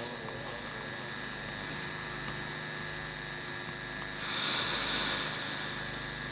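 Steady electrical hum and hiss of a public-address microphone system in a pause between recited Quran verses, with a breath drawn close to the microphone about four seconds in.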